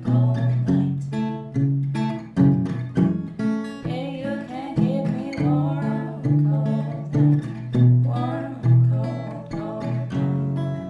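Acoustic guitar strummed in a steady chord rhythm, with a woman singing softly over it.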